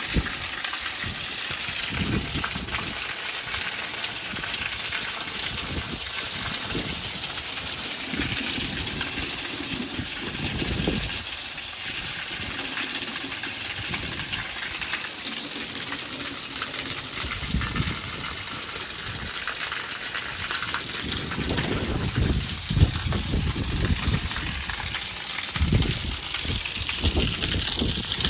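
Steady rain with runoff gushing off a roof edge that has no gutter, with wind gusts buffeting the microphone, stronger in the last several seconds.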